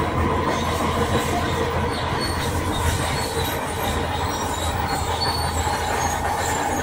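Shantui crawler bulldozer working, its engine running under a steady metallic clatter from the steel tracks, with a thin high squeal held over it.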